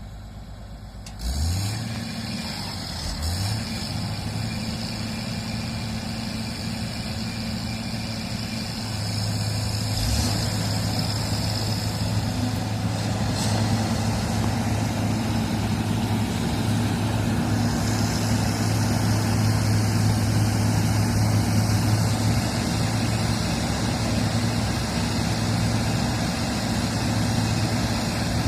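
Diesel engine of heavy earthmoving machinery running steadily with a low hum. It starts abruptly about a second in and grows louder about a third of the way through.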